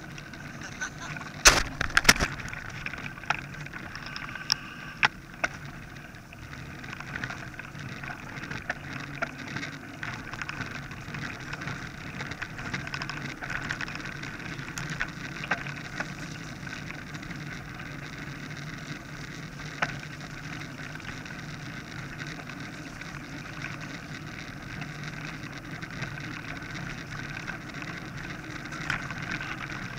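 Mountain bike rolling over a gravel and dirt lane: steady tyre noise with rattling from the bike, and a few sharp knocks about two seconds in.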